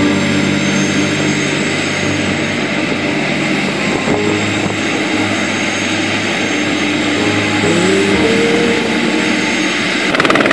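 Helicopter running up on the ground before lift-off: steady turbine and rotor noise, with a tone rising about eight seconds in. A fast rotor chop sets in near the end as the blades come up to speed.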